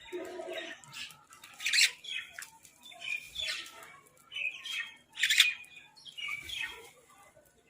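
Birds giving a run of harsh calls one after another, about eight in all, the loudest about two seconds and five and a half seconds in.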